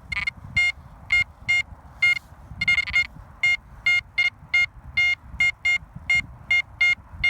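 XP Deus metal detector sounding a short, pitched beep over and over, about two a second, evenly spaced and steady in pitch, with a low rustle of movement underneath.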